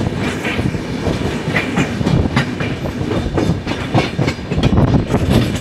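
Passenger train running on the rails, its wheels clattering over the rail joints in a quick, uneven run of knocks over a steady rumble.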